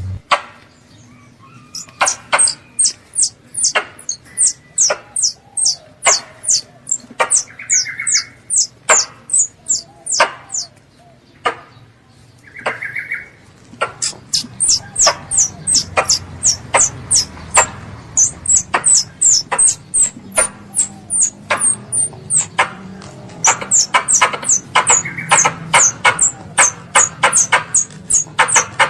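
A young squirrel calling for its mother: a rapid series of sharp, high chips, about two a second, each dropping quickly in pitch, with a break of a few seconds near the middle.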